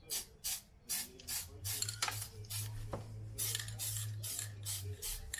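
Aerosol spray can of red paint hissing in short, quick bursts, several a second, as it is sprayed onto a brake caliper. A low steady hum sounds underneath for much of it.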